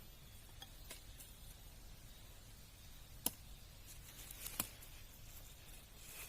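Quiet background with a few short, sharp clicks of handling: a faint one about a second in, the loudest about three seconds in, and a small cluster about a second later.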